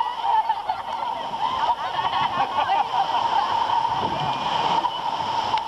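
Seawater splashing and sloshing as people clamber onto an inflatable banana boat, with a steady high hum underneath.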